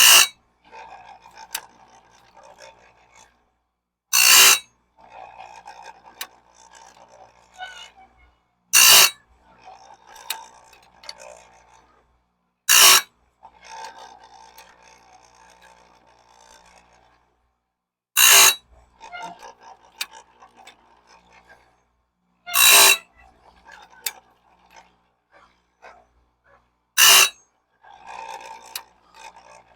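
Electric chainsaw-chain sharpener grinding bandsaw blade teeth one at a time: a short, loud grind about every four and a half seconds, seven times, with quieter scraping and clicks in between.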